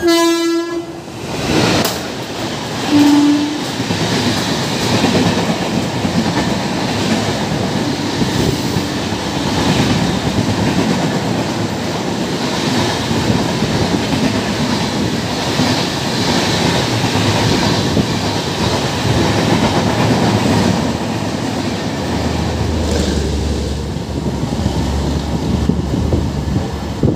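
Indian Railways express train passing through a station at speed: the locomotive horn sounds a short blast, then a brief, slightly lower note about three seconds in. After that comes a loud, steady rush of wheel and rail noise as the long rake of red-and-grey LHB coaches goes by, with a deeper rumble in the last few seconds.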